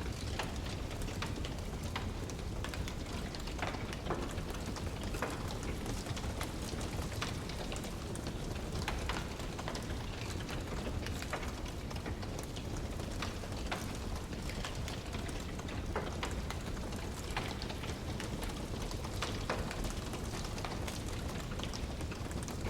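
Wood fire crackling: frequent irregular small pops and snaps over a steady low rumble.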